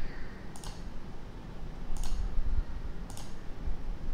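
Computer mouse clicking three times, a little over a second apart, while choosing options in drop-down menus.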